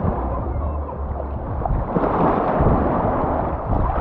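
Shallow sea water washing and lapping over the sand at the water's edge, with wind buffeting the microphone as a low rumble.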